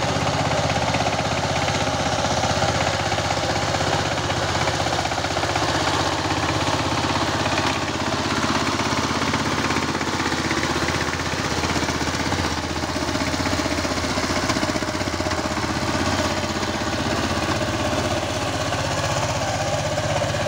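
Single-cylinder diesel engine of a two-wheel power tiller running steadily, with a fast, even knocking beat.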